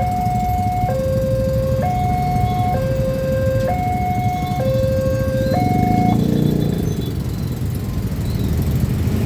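Railway level-crossing warning alarm sounding a two-tone alternating signal, high and low notes about a second each, which stops about six seconds in, over the rumble of idling road traffic.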